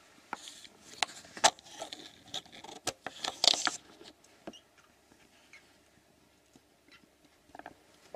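Pattering and scuffling of a cat's paws as she plays with a caught mouse: a quick run of taps and rustles over the first four seconds, then only a few faint taps.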